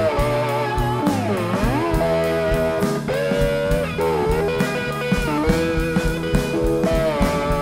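Live blues band: an electric guitar solo of held notes, several swooping down in pitch and back up, over a steady drum beat and bass guitar.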